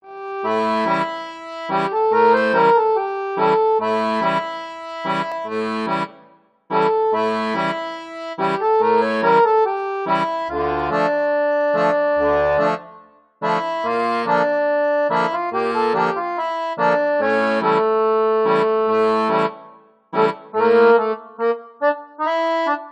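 Instrumental background music: rhythmic chords over a bass line, in phrases that break off briefly about every seven seconds and end in short, separate notes.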